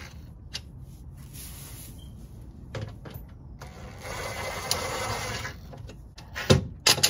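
Cordless power driver with a socket running a bolt into the engine skid plate for about a second and a half midway, followed near the end by a few sharp knocks, the loudest sounds here.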